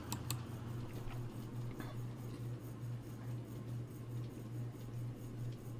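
Low steady hum in a quiet room, with a faint double click of a computer mouse just after the start as the video player is switched to full screen.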